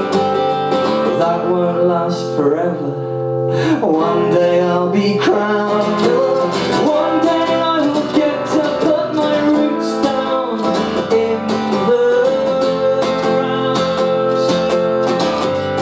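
Live music: an acoustic guitar strummed under a man's singing voice.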